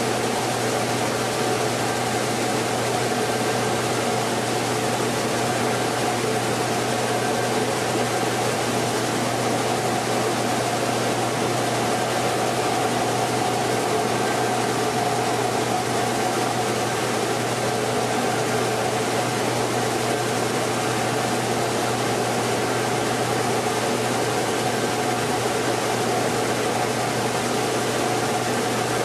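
Mini rice mill machinery running steadily: a constant mechanical hum and rushing noise from the mill's motors and blowers, with no change in pace.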